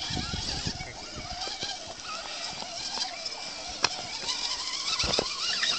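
Scale RC rock crawler's small electric motor and gears whining as it creeps over dirt and rocks. There is a low rumble in the first second and a sharp click about four seconds in.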